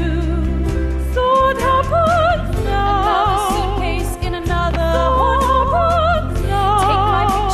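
A woman singing a slow musical-theatre ballad, holding long notes with wide vibrato, over a sustained instrumental backing.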